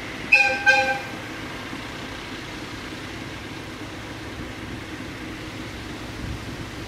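Diesel locomotive horn giving two short blasts in quick succession about half a second in, each a chord of several notes sounding together.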